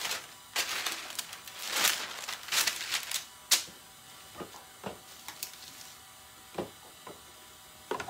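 DTF transfer film sheets rustling and crinkling as they are handled, in several short bursts over the first three and a half seconds, followed by one sharp click and a few light taps.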